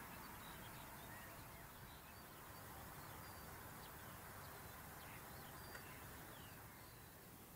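Faint birdsong: scattered short chirps and whistles from several small birds over a steady background hiss.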